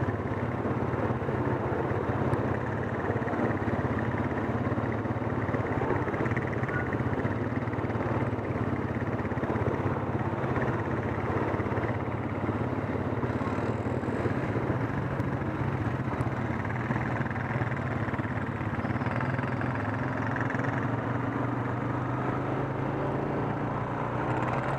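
An ATV engine running steadily while riding, with a constant rush of noise. Over the last several seconds its pitch climbs slowly as it speeds up.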